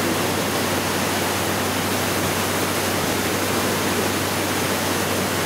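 Steady rush of Maria Cristina Falls, a tall twin-plume waterfall falling into a rocky whitewater river.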